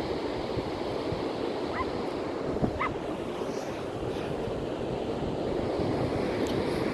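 Ocean surf washing on the shore, a steady rushing noise, with wind buffeting the microphone.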